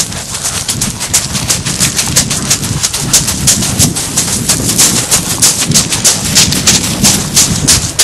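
Running footsteps crunching fast on a shingle beach, pebbles grinding and clattering underfoot several times a second, over a low rumble.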